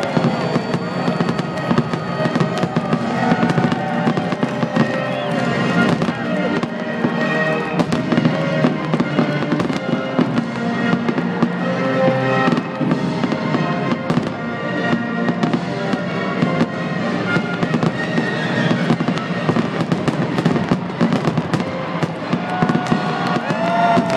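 Aerial fireworks shells bursting one after another in a dense, continuous barrage, with crackling between the bangs. Music plays underneath.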